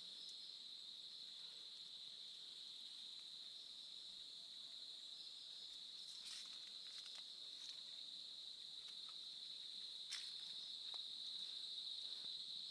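A steady, high-pitched insect chorus, with a few faint clicks about halfway through and again near the end.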